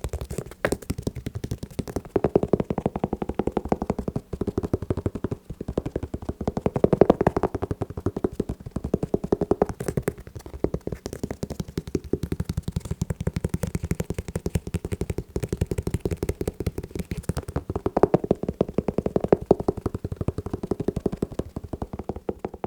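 Fingers tapping very fast on shoes, a dense, continuous patter of short hollow taps.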